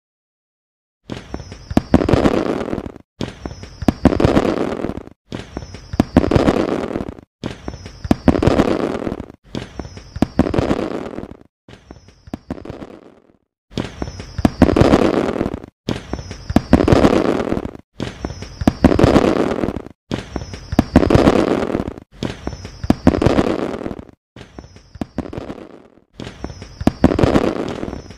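Fireworks rocket bursts repeating about every two seconds, starting about a second in. Each is a sudden crack with a short high falling tone, then crackling that dies away and is cut off abruptly before the next burst. Two of the bursts are quieter.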